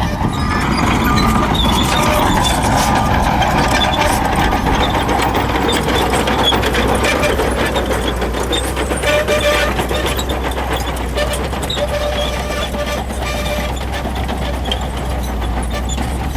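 Shantui crawler bulldozer working: its diesel engine runs steadily under load while the steel tracks clank and squeal.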